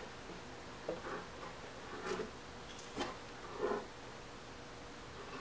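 Faint, scattered knocks and scrapes of steel pipe rollers being handled under the base of a milling machine, with one sharper click about three seconds in.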